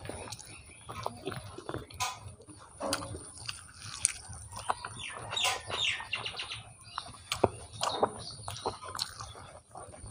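Close-miked ASMR eating sounds of a person chewing rice and chicken with closed lips: wet chewing and lip smacks, with fingers working the rice on the plate between bites. A short run of high chirps, like a bird calling, comes about halfway through.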